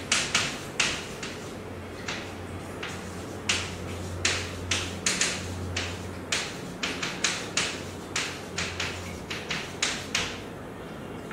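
Chalk writing on a blackboard: an irregular run of short, sharp taps and scratches, one for each stroke, with brief pauses, stopping about a second before the end. A low steady hum lies underneath.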